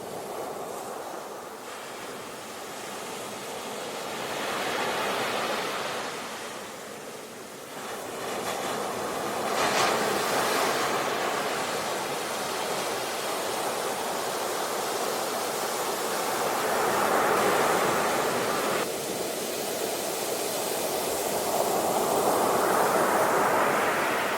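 Ocean surf: waves breaking and washing in, the rush of water swelling and ebbing several times, with one swell cutting off suddenly about three-quarters of the way through.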